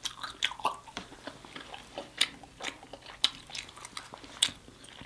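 Close-up eating sounds of sauce-covered lobster tail: irregular wet clicks and smacks of mouth and sticky fingers, about two or three a second.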